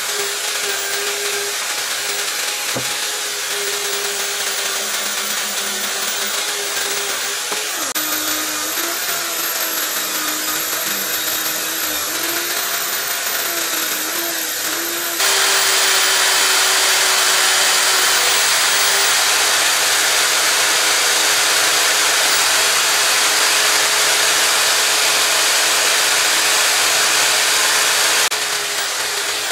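Bosch corded drill, clamped in a vise as a makeshift bench grinder, running a wire brush wheel at speed: a steady motor whine with the scratchy hiss of the wire bristles scrubbing a small metal calibration weight. About eight seconds in the motor's pitch sags and wavers for several seconds under the load, and about halfway through the hiss grows louder.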